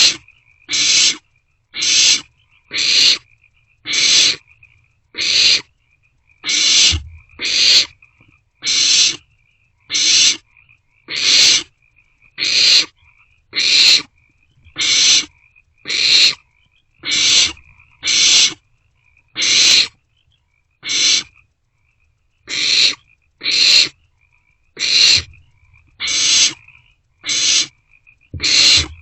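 Barn owlets giving their rasping, hissing begging calls, one call about every second in an even rhythm while they vie over food.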